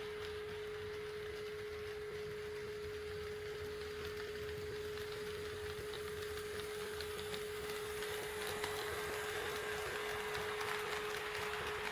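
A steady, pure electronic tone sounds throughout. About two-thirds of the way in, the rolling rumble and light rail-joint clicks of an HO-scale model train grow louder as it comes closer.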